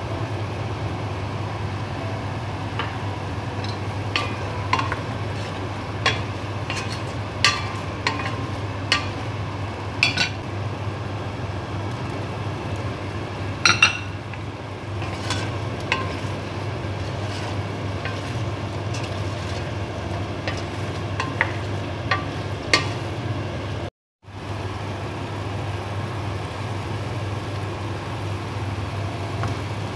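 Chicken frying in a stainless steel pot: a steady sizzle over a low hum, with scattered sharp clinks and knocks of utensils and ingredients against the pot, the loudest about halfway through. The sound cuts out for a moment about three quarters of the way through.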